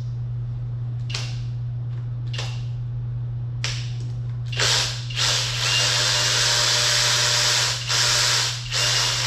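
Cordless power tool run in three short pulses, then almost continuously for about four seconds with two brief stops, spinning out the last intake manifold fasteners. A steady low hum runs underneath.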